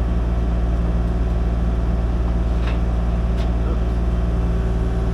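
Kubota KX040 mini excavator's diesel engine running steadily.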